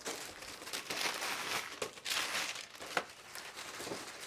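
Packaging crinkling and rustling as items are handled and lifted out of a box, with a few sharp handling clicks.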